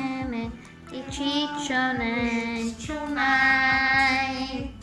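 Background music: a song with a high singing voice holding long notes over a steady beat, with a short break in the singing about half a second in.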